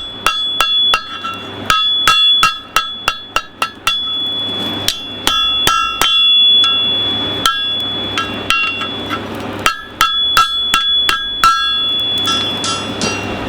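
Blacksmith's hammer striking a horseshoe on the anvil in quick runs of blows, each strike leaving a high metallic ring, with short pauses between the runs, over a steady low hum.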